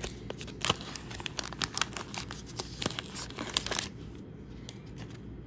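Wax-paper wrapper of a 1985 Fleer baseball card pack crinkling and tearing as it is pried open, its wax seal stuck hard ("cemented shut"). Quick crackles and snaps of the paper stop about four seconds in.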